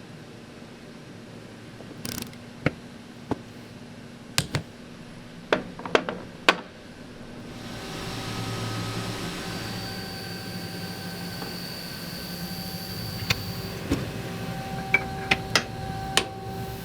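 Machine-shop setup sounds: a run of sharp metallic clicks and knocks, then machinery starts running with a steady hum and faint whine, with a few more clicks near the end.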